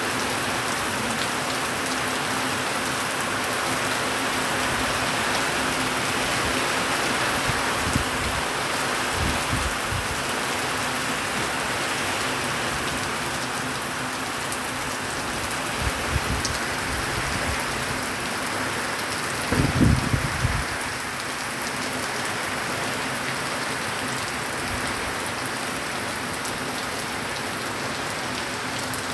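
Heavy rain falling steadily in an even hiss. A few short low rumbles break through, the loudest about two-thirds of the way in.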